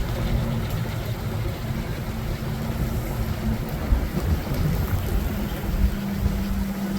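Strong hurricane-driven wind buffeting the microphone in uneven low rumbles, with a rushing noise of wind and rain. A steady low hum runs under it and drops out for a while midway.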